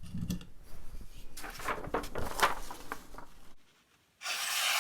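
Knife edge sliding across a 1200-grit diamond sharpening plate: several light, uneven scraping passes, a short pause, then one longer, louder even scrape near the end as a final cleanup pass.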